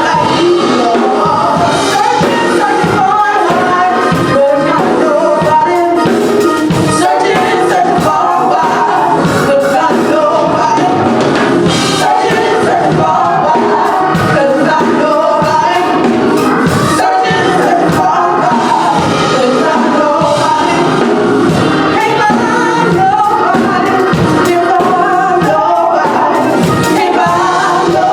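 Gospel choir singing with instrumental accompaniment, a steady full-band song.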